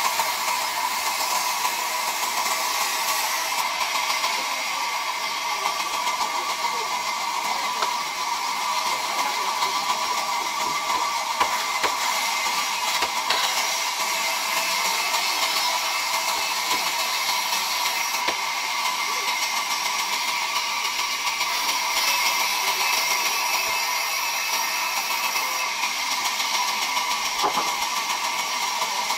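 Large vertical band saw running steadily, its blade cutting through a wooden slab as it is fed across the table. Continuous machine noise with a constant high tone and no pauses.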